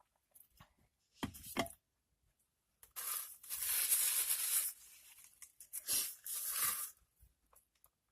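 Crinkly packaging being handled and torn, in three rustling bursts, the longest about three seconds in.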